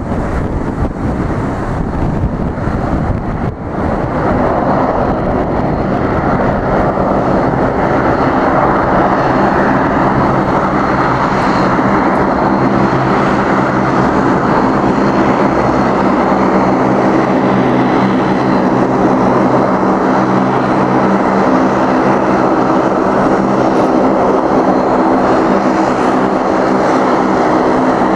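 Bombardier Dash 8 Q400's two Pratt & Whitney PW150A turboprops and six-bladed propellers running at taxi power: a steady propeller hum with several held tones. The hum grows clearer and louder over the first few seconds as the airliner taxis closer, then holds.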